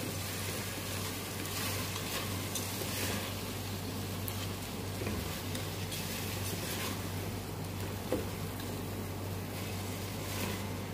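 Wooden spoon slowly stirring rice into a hot pot of tomato sauce on a gas stove, with a steady sizzle and soft scraping strokes against the pot. A steady low hum sits underneath.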